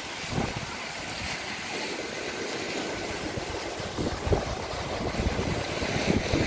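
Strong wind buffeting the microphone in irregular low rumbles, over the wash of choppy lake waves against the seawall. The gusts grow stronger near the end.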